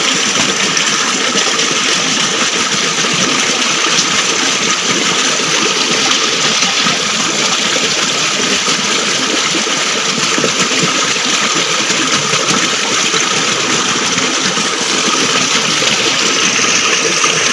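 Mountain stream rushing over rocks and a small cascade: a steady, loud wash of running water.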